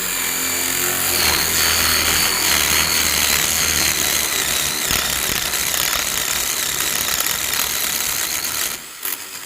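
Power drill turning a 1-inch paddle bit, boring a deadbolt hole through wood: a steady drilling noise with a high motor whine, stopping about nine seconds in, followed by a couple of short bursts.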